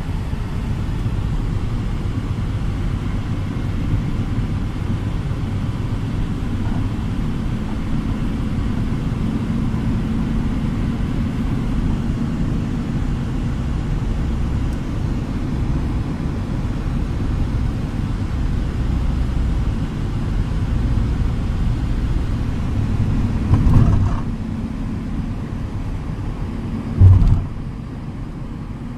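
Steady low road and engine rumble heard inside the cabin of a moving car, with a brief louder thump near the end.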